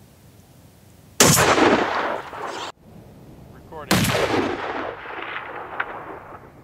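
Two shots from a Barrett M82A1 .50 BMG semi-automatic rifle, about a second and 3.9 seconds in, each followed by a long echo that dies away. The first echo is cut off abruptly.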